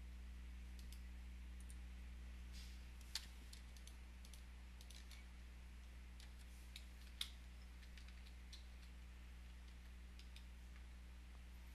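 Near silence: a steady low electrical hum with scattered faint clicks, two of them louder about three and seven seconds in.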